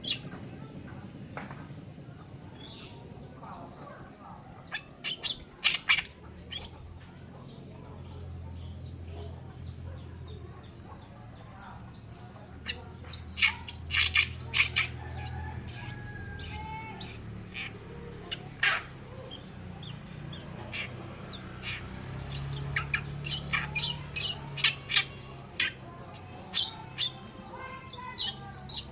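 Oriental reed warbler singing in spurts of loud, rapid, harsh chattering notes, in three main bursts with quieter gaps between, over a low steady hum.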